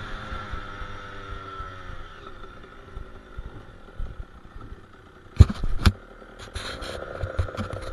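KTM 85 SX two-stroke dirt bike engine coming off the throttle, its pitch falling over the first couple of seconds, then running low and steady. Two loud knocks come a little past halfway, followed by scattered clicks and rattles.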